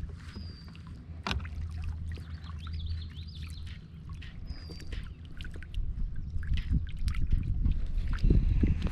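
Knocks and water sounds around a fishing kayak, growing louder and busier in the second half. A bird whistles a short note near the start and again about halfway, with a brief warble in between.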